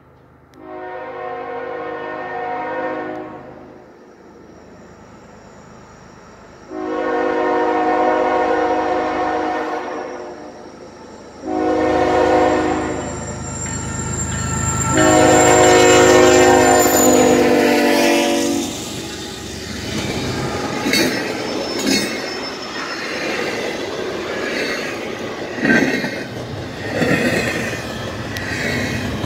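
Air horn of a CN ES44AC diesel locomotive sounding four blasts, the last the longest and loudest, as the intermodal train approaches. The train then rolls past, with wheels clicking irregularly over the rails.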